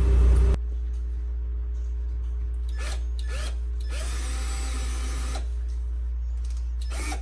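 Cordless power drill driving a fastener: two brief trigger pulls, then a longer run of about a second and a half in which the motor spins up and holds its pitch. A loud rumbling noise cuts off suddenly about half a second in.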